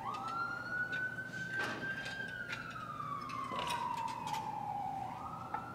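Emergency vehicle siren wailing, its single tone rising and falling slowly in pitch over a few seconds and starting a new rise near the end, with a couple of light clicks under it.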